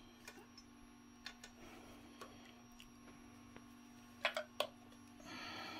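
Faint clicks and taps of test-lead wires against a white plastic multi-pin connector being handled, with a quick cluster of sharper clicks about four seconds in, over a steady low hum.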